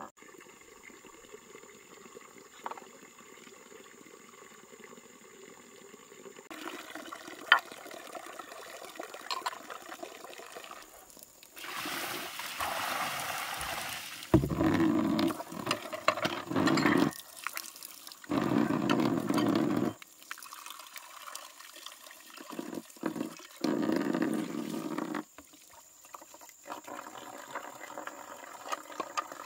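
Water pouring or splashing in several separate spells of one to three seconds each, with quieter stretches in between.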